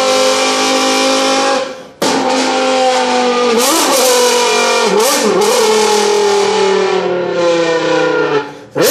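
Mouth-made V10 engine imitation, a voice buzzing through a flattened beer can with several notes held together. It holds a high note, cuts out briefly just before two seconds in like a gear change, then wavers up and down and settles into a long, slowly falling note before cutting again near the end.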